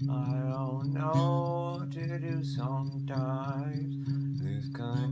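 Electric guitar music: a steady low drone note rings throughout, under a wavering, sliding melody line that comes in phrases about a second long.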